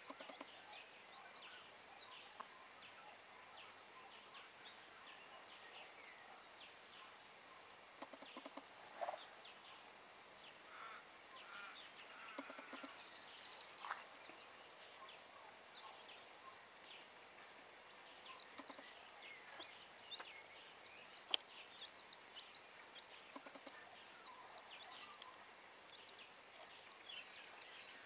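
Faint, scattered high peeps from a d'Uccle bantam chick and a few low clucks from the hen as she dust bathes. A single sharp click about two-thirds of the way through.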